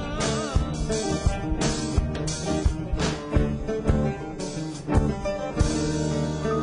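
Instrumental band passage: an oud plays plucked phrases over drums and percussion striking about twice a second. The drum hits stop about five and a half seconds in while the sustained instruments carry on.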